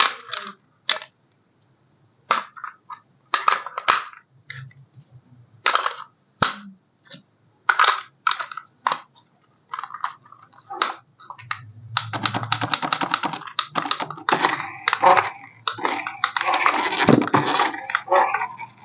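Packaging being handled during an unboxing: a series of short crackles and clicks, turning into continuous crinkling and rustling about two-thirds of the way through.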